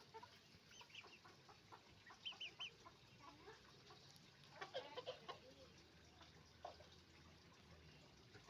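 Chickens clucking faintly in short, scattered calls, with a louder flurry of clucks about halfway through.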